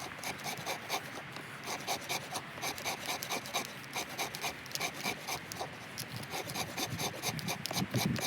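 Bark being scraped off a stick drawn against the square 90-degree spine (anvil) of a tracker knife fixed horizontally in a stump: quick rasping strokes, about three or four a second.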